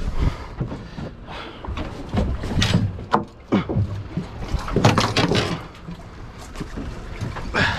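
Wind and water noise on a small open fishing boat at sea: an uneven rush with irregular swells and splashes, broken by a few sharp knocks and bumps.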